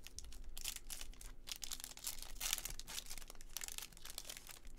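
Rustling and crinkling of baseball cards and pack wrappers being handled, as a run of quick scratchy brushes.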